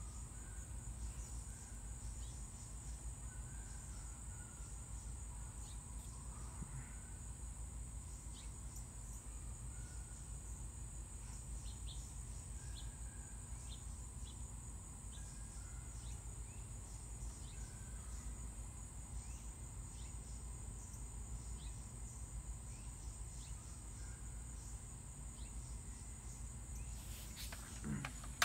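Steady high-pitched chorus of insects, crickets or similar, with a few faint short chirps and a low steady rumble underneath.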